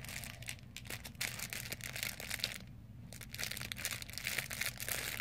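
Packaging crinkling and crackling as someone handles it and tries to open it by hand, with a brief pause about halfway through.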